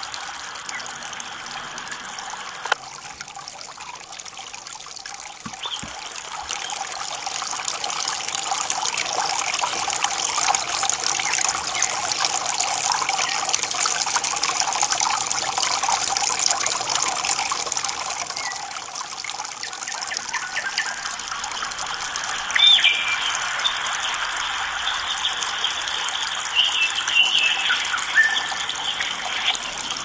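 Small stream running and trickling over a submerged branch, a steady rush that grows louder through the first half. A few brief high chirps sound over it in the last third.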